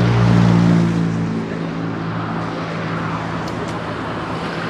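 A motor vehicle's engine running with a low steady hum that is loudest at first and fades after about a second and a half, over a steady wash of road noise.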